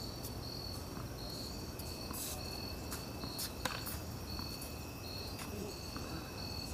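Crickets chirping in a steady, regular high pulse, with a thin continuous insect trill underneath. A few sharp knocks from tennis ball strikes come in the middle, the loudest a little past halfway.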